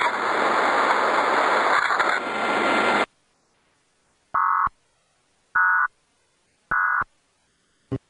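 Heavily distorted, noisy broadcast alert audio that cuts off abruptly about three seconds in. After a short silence come three short data bursts about a second apart, the Emergency Alert System end-of-message tones, then a brief click near the end.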